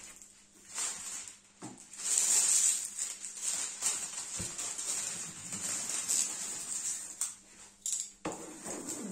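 Diamond painting canvas and its plastic cover sheet rustling and crinkling in irregular bursts as it is handled and smoothed to flatten creases.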